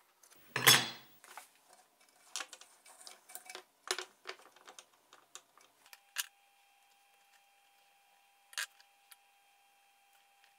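Hand tools and small metal parts handled on a wooden workbench while a motor's wiring is worked on. One loud knock comes under a second in, then a quick run of small metallic clicks and clatters, and a few isolated clicks later.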